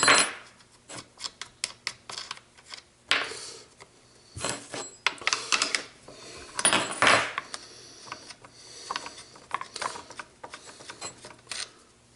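Irregular metal clicks, clacks and short scrapes of a chainsaw's nuts being undone with the small combination wrench and the side cover being worked off. A few longer rattling scrapes come about 3, 4.5 and 7 seconds in.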